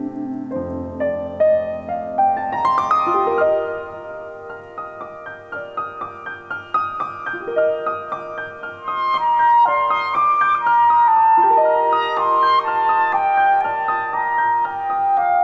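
Clarinet and grand piano duo playing classical chamber music. The piano plays a rising arpeggiated run, then the clarinet comes in with a held melody over the piano.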